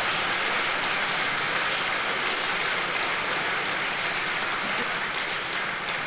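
Large audience applauding: steady, dense clapping that begins to fade near the end.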